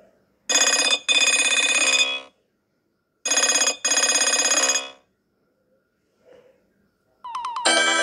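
Nokia 3220 polyphonic ringtone: a short bright melodic phrase, about two seconds long, plays twice with a pause between. Near the end a different ringtone starts with a quick rising run.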